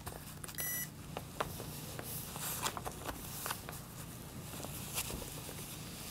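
Quiet handling sounds of pressing a fabric piece on a paper foundation with a steam iron: soft paper rustles and scattered light taps and clicks as the iron and hand move over the piece. A short high beep sounds about two thirds of a second in.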